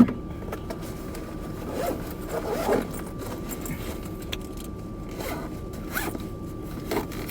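A sharp click, then scattered short rustles and scrapes like a zipper or handling noise, over a faint steady whine and low rumble.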